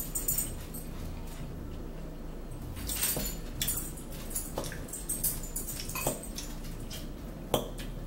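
Close-up mouth sounds of eating salad: chewing and lip smacks, with a few sharp clicks of a fork against the bowl.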